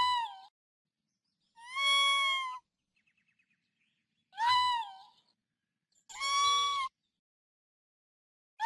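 Raccoon kit giving a series of high-pitched, kitten-like cries, each about a second long, repeated roughly every two seconds.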